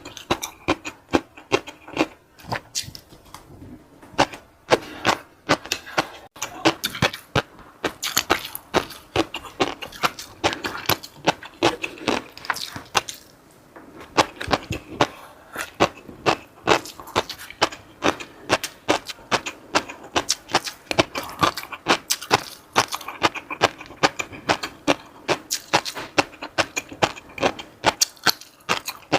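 Close-miked eating: chewing and crunching food, with a dense, irregular run of sharp crackles several times a second.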